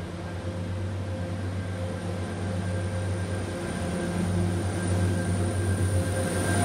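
Class 175 diesel multiple unit running in along the platform, its underfloor diesel engines giving a steady low drone that grows gradually louder as the train draws near.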